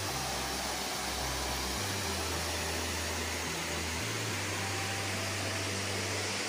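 Waterfall spilling over rock ledges, a steady even rush of falling water.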